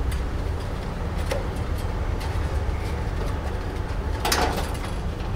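Small clicks and a brief rustle of cables and connectors being handled and plugged in at the back of a DVR in a wall rack, over a steady low hum.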